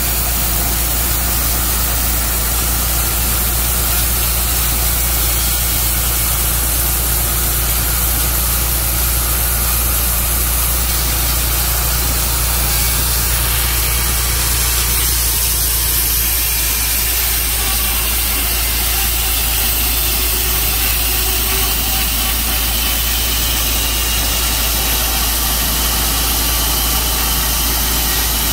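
Sawmill engine running steadily through a log, its low tone shifting about halfway through.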